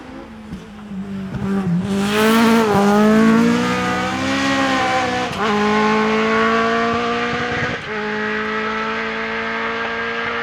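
Competition car's engine accelerating hard up a hillclimb course, getting loud from about two seconds in. The revs drop sharply at gear changes about five and eight seconds in, then climb again.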